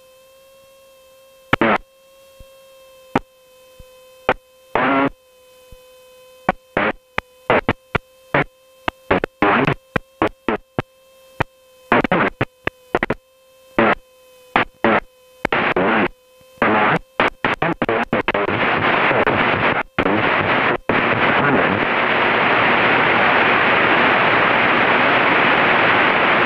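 Aircraft radio and intercom feed crackling with static: a steady hum-like tone interrupted by dozens of short, sharp crackling bursts, which run together into continuous radio static hiss about two-thirds of the way through.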